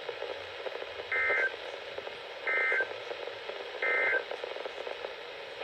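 Three short bursts of Emergency Alert System digital data tones, each about a third of a second long and about a second apart, over steady radio hiss. This is the end-of-message code that closes the alert.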